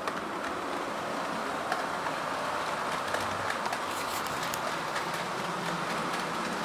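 Accurascale OO gauge Class 55 Deltic model locomotive with its sound turned off, pulling a rake of Pullman coaches: the motor and running gear make a steady running noise as it starts smoothly and picks up speed. A few light clicks come from the wheels on the track.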